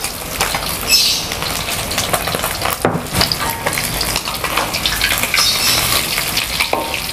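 Hot frying oil sizzling and crackling in a wok, with metal utensils clinking and scraping against the pans and a sharp knock about three seconds in.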